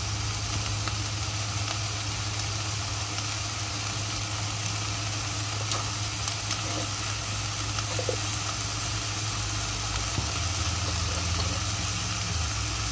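Diced beetroot, carrot and onion sizzling gently in an enamelled pot, over a steady low hum, with an occasional faint tap.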